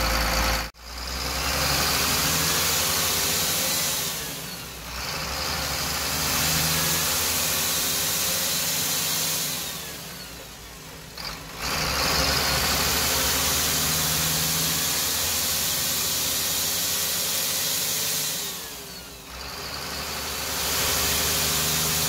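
Bus turbodiesel engine running, heard with its engine-bay cover off. It is steady, with brief drops in level about three times.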